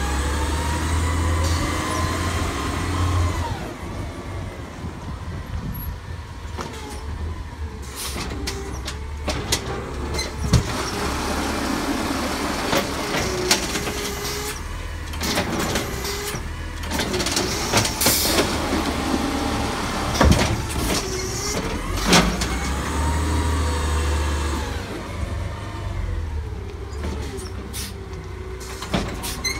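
Natural-gas garbage truck with an AMREP automated side-loader arm running through a pickup. The engine revs up and down as the hydraulic arm lifts a cart, tips it over the hopper and lowers it, with sharp bangs as the cart is shaken out and knocks against the body.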